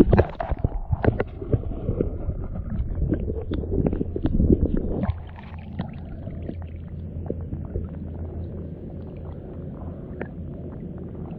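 Water sloshing and splashing close to a camera held at the river's surface, with irregular knocks for about the first five seconds, then a quieter, steady water sound.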